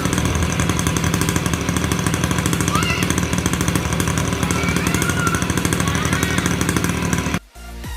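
Two-stroke motorcycle engine of a Yamaha F1ZR running with a fast, dense rattle, cutting off suddenly near the end. A few short chirps sound above it.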